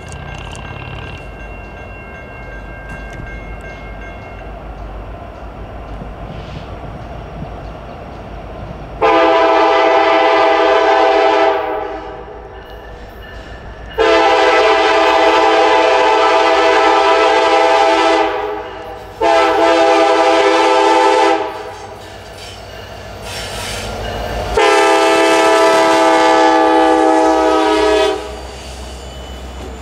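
Diesel locomotive multi-chime air horn sounding four blasts, the third shorter than the others, the long-long-short-long grade-crossing signal. Before the horn the train is heard as a low, steady rumble.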